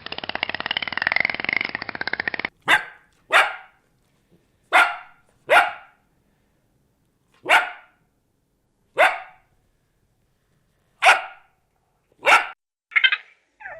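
A dense, rapidly pulsing rasp that cuts off after about two and a half seconds, followed by a dog barking about ten times in single, separate barks with pauses between them.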